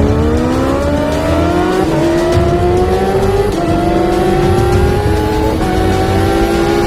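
Kawasaki Ninja H2R's supercharged inline-four engine accelerating hard through the gears. The pitch climbs and drops back a little at each of three upshifts, about every two seconds, and each gear climbs more slowly than the last.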